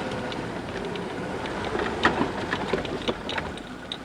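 A vehicle moving slowly across a bridge: a low steady running noise with scattered knocks and rattles.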